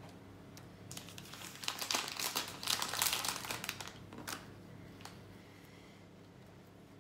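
Crinkling of baking paper and plastic food packaging being handled, in a series of crackles over a few seconds, then fading out.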